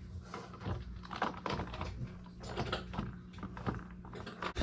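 Irregular light plastic clicks and taps from a smoke alarm's housing being handled, as it is turned over to read the date on it.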